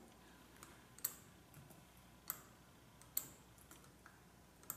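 Scattered clicks from a computer being worked while a slide's text is corrected: four sharper clicks roughly a second apart, with fainter ones between, in a quiet room.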